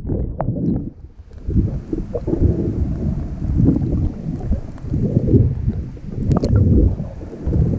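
Seawater sloshing and gurgling around a handheld camera as it dips under the surface and back out: irregular low rushing, muffled at first, then with a light hiss of splashing.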